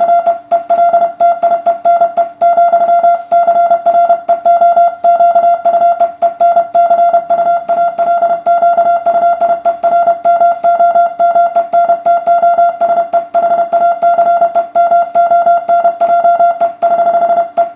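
Amateur radio Morse code (CW): a single mid-pitched beep keyed on and off rapidly in dots and dashes.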